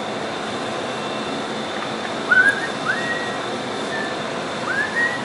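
A person whistling a few short notes, each sliding up to a held pitch and dropping away, starting a little over halfway through, over a steady hiss of workshop room noise.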